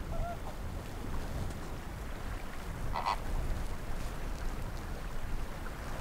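Bird calls: a faint short call near the start and a louder, brief call about three seconds in, over a steady low rumble.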